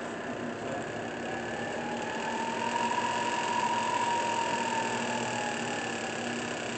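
Atrump K3V vertical milling machine's 3 hp head running with the spindle in high range, a steady mechanical hum. In the middle, a whine rises in pitch and then falls away again.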